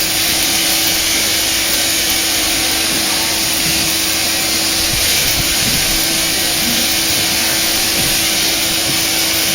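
Sheep-shearing machine handpiece running steadily as it cuts the belly wool off a sheep, a continuous mechanical whirring hiss.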